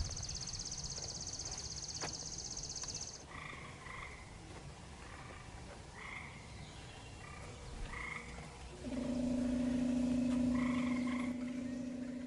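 Frogs calling in an outdoor evening chorus: a high, fast pulsing trill for the first three seconds, then short calls repeated every second or two, and from about nine seconds in a louder, low, steady trill.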